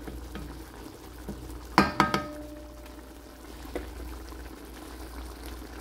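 Chicken in thickened coconut-milk sauce simmering in a stainless steel wok, bubbling as a wooden spatula stirs it. Two sharp knocks come about two seconds in, close together, with a brief metallic ring.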